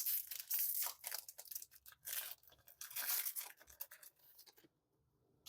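Foil booster-pack wrapper being torn open by hand, an irregular run of crackly tearing that stops about four and a half seconds in.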